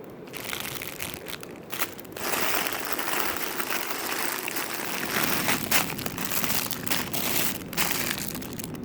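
Packaging crinkling and rustling as it is handled, with small clicks, louder from about two seconds in.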